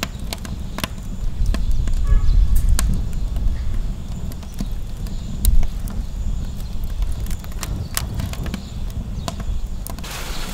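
Wood fire burning in a BondStove Mini smokeless fire-pit stove: irregular sharp crackles and pops from the logs over a steady low rumble.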